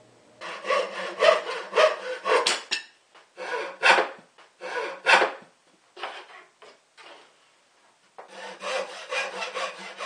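Hand saw cutting a thin wooden edging strip, in runs of quick back-and-forth rasping strokes, about two a second. Short pauses come around 3 s and between about 7 and 8 s.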